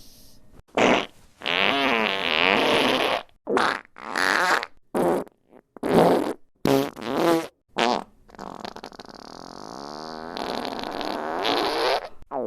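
A run of fart sound effects, one after another: several short ones and a couple lasting a second or two, with a wavering pitch, and a long drawn-out one in the last few seconds.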